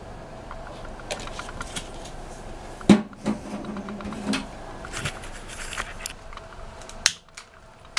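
Scattered clicks and knocks of a metal camp stove and its shoe-polish-tin alcohol burner being handled while fuel is filled, with one sharp knock about three seconds in that rings on briefly at a low pitch, and another sharp sound near the end.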